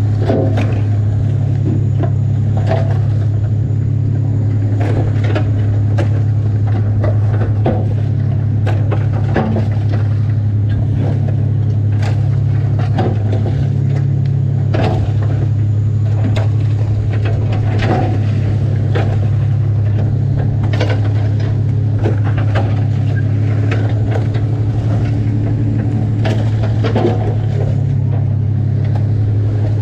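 A fishing boat's machinery running with a steady low drone, under frequent irregular clicks and clatter of Tanner crab shells and legs knocking together and against the stainless-steel sorting table as the crabs are handled and gauged.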